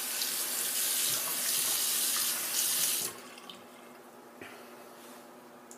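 Bathroom sink tap running, water splashing into the basin, then shut off abruptly about three seconds in.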